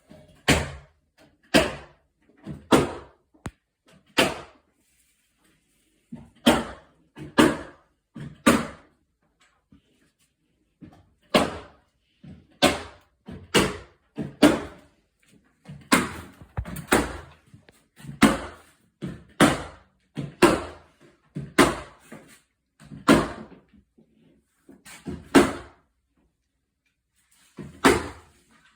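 Repeated heavy knocks in a small room, coming one or two a second in uneven runs, with a few pauses of a second or two between runs.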